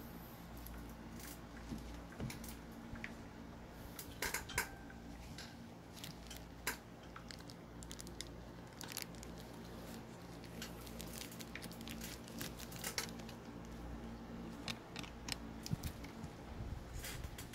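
Scattered light clicks and taps over a steady low hum, with a small cluster of louder clicks about four seconds in.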